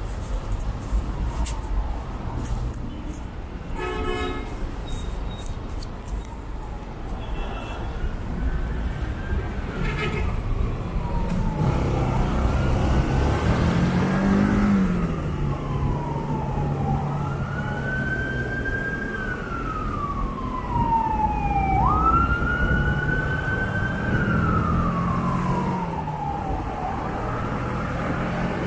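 Slow city traffic with motor vehicle engines running, a short horn blast about four seconds in, then from about twelve seconds an emergency siren wailing, its pitch sweeping up and down every few seconds.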